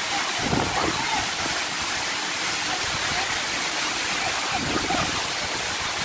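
Rushing water of a mountain stream and waterfall pouring over rock, a steady even hiss.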